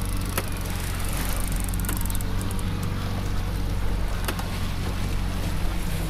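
Outboard motor running steadily under a constant hiss of wind and water, with a few light clicks.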